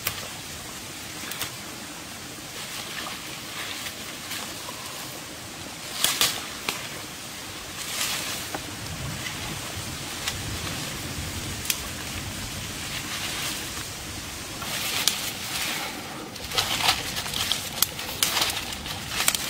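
Leaves and stems rustling and crackling as young plants are picked by hand in thick undergrowth, with sharper bursts of crackling around six and eight seconds in and a busier stretch near the end.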